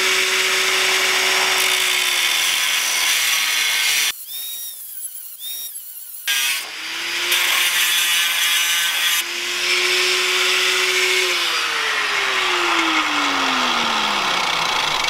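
Angle grinder with an abrasive disc grinding a sliver off a truck's steel frame so the torsion bar can slip in. It stops for about two seconds about four seconds in, then starts again, and near the end the motor's pitch drops as it is pressed into the cut.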